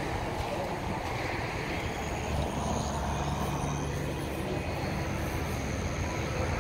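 A steady, low mechanical drone, like an engine running nearby, holding even throughout.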